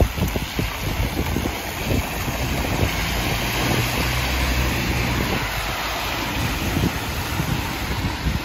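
Wind rushing over the microphone while cycling along wet paving, with rolling tyre noise and a few knocks at the start. A low steady hum joins about three seconds in and fades after a couple of seconds.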